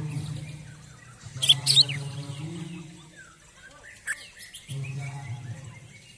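Caged male green leafbird (cucak ijo) in its worked-up 'emosi' song, giving two sharp, loud chirps about a second and a half in and a shorter chirp near four seconds. A low hum sits underneath at times.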